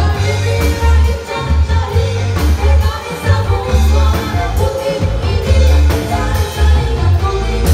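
Live band playing through a PA: two women singing into microphones over bass guitar, electric guitar, keyboard and drums, with a heavy pulsing bass line.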